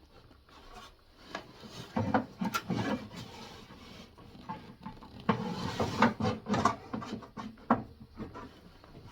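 Irregular knocks, scrapes and rubbing against the wood of a kitchen unit as cable is worked through holes in it, coming in a cluster about two seconds in and a longer busier stretch from about five seconds in.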